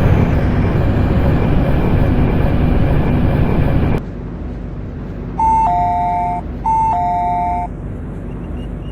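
Loud running noise inside an MTR C-train, a dense rumble and hiss that cuts off abruptly about four seconds in. Then an electronic two-note falling chime, like a ding-dong, sounds twice over the quieter background: the train's PA chime that comes before an announcement.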